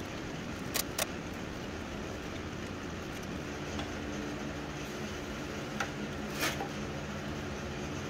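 A few light clicks of wires and crimped ring terminals being handled in a pool pump motor's terminal compartment, over a steady background hum that grows a little fuller about three and a half seconds in.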